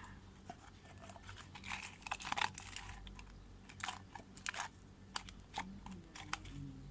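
Thick homemade slime being stirred and worked in a container, giving irregular sticky clicks and crackles as it stiffens.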